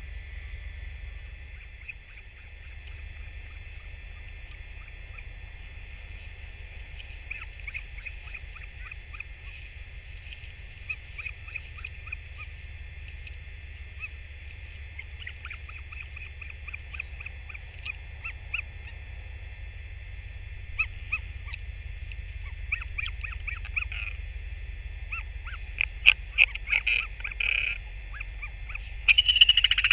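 Northern royal albatross at the nest making rapid clattering calls in short bursts, which grow denser and louder toward the end, over a steady rumble of wind on the microphone.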